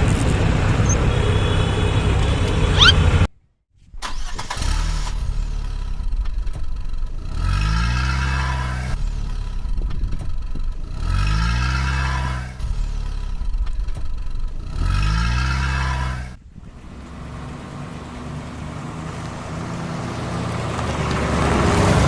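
Vehicle engine running with a steady drone, revving up three times at even spacing; each rev is a rising pitch lasting about a second and a half. The sound cuts out briefly near the start.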